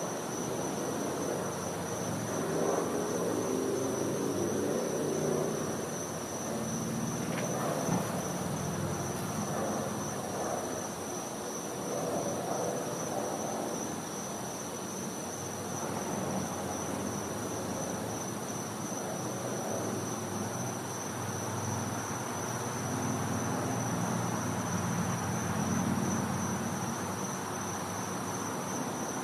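Night insects trilling in one steady, high, rapidly pulsing chorus, over a low distant rumble that swells and fades a couple of times.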